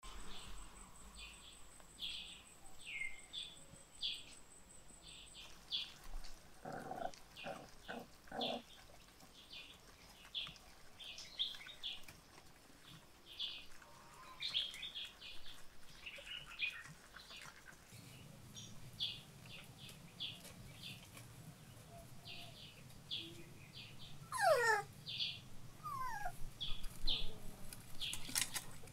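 Birds chirping over and over in short high calls. Puppies give a few quick yaps about seven seconds in and a falling whine near the end.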